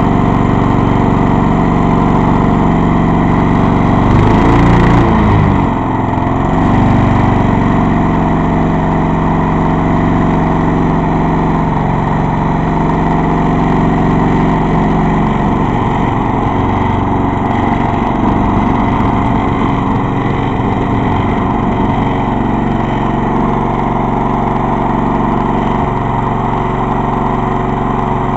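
Old Craftsman lawn mower's small engine running steadily, with a brief rise and fall in speed about four seconds in; from about halfway the engine note runs less evenly.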